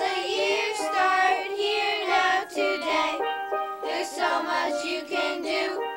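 Children's song: children singing over a bright instrumental backing.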